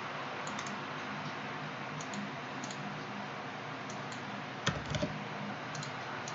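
Scattered light clicks of a computer keyboard and mouse over a steady background hiss, with a louder knock and a smaller second one about three quarters of the way through.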